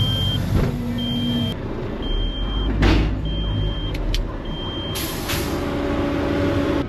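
Diesel engine of a Kenworth T800 dump truck running, heard from inside the cab while the dump body is up, with a high warning beeper sounding about once a second. There is a short hiss of air about three seconds in, and a steady hum starts about five seconds in as the hoist controls are worked.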